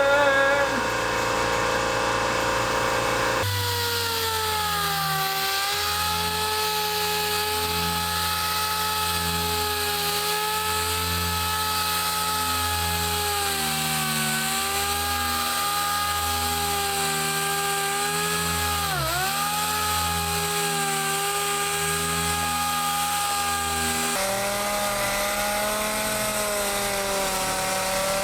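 Electric sander running steadily, sanding scratches out of an aquarium panel with fine grit paper. Its motor whine sags briefly about 19 seconds in, and the sound changes abruptly twice, a few seconds in and near the end.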